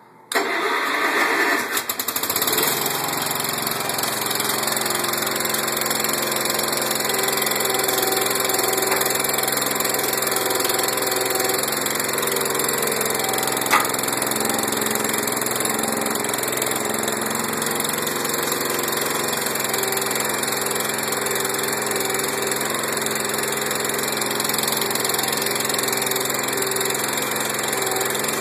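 A 1968 Case 444 garden tractor's single-cylinder Kohler engine starting and catching within about two seconds, then running steadily. A single sharp click sounds about halfway through.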